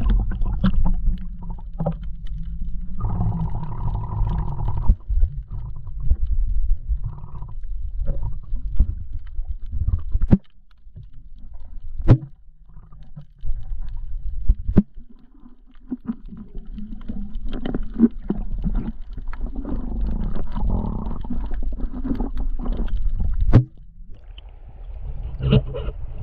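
Muffled sound of water heard by a camera held underwater: a low rumble of moving water and bubbling with scattered knocks against the camera housing, dropping away briefly a few times.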